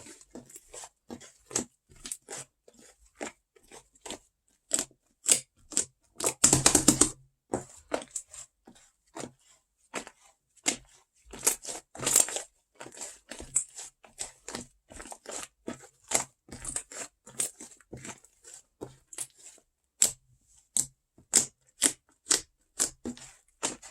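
Fluffy slime being squeezed and stretched by hand, giving irregular sharp clicks and pops as air pockets burst, with a longer run of crackling about seven seconds in and again around twelve seconds.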